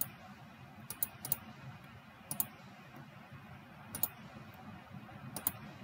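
Scattered sharp clicks of a computer mouse and keyboard, about ten of them, some in quick pairs, over a faint low hum.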